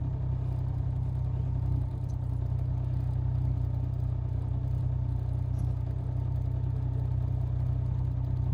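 Boat motor running steadily at low speed, a constant low hum with no change in pitch.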